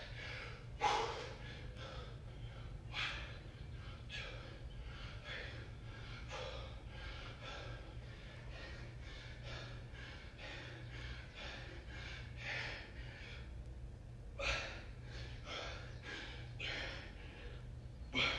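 A man breathing hard under exercise exertion, with short forceful breaths about once a second and a few stronger gasps: near the start, about a second in, midway through and near the end. A steady low hum runs underneath.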